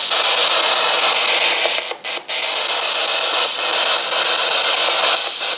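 S Box ghost scanner (spirit box) sweeping the FM band, giving a steady hiss of radio static that cuts out briefly twice about two seconds in.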